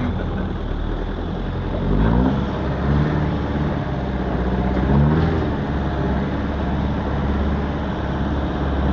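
Off-road vehicle's engine running under way on a rough dirt track, heard from inside the cab, revving up and easing off about two seconds in and again about five seconds in.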